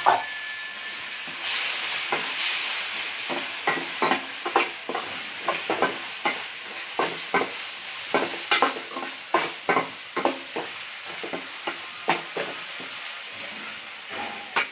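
A metal spatula scrapes and knocks against a metal kadai, a few strokes a second, as tomato pieces are stirred into frying onion and green-chilli masala. The oil sizzles steadily underneath and grows louder about a second and a half in.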